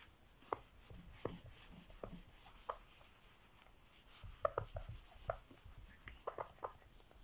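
Whiteboard eraser being wiped across a whiteboard: faint, irregular short squeaks and scuffs of the eraser on the board, with a small cluster of low knocks about four to five seconds in.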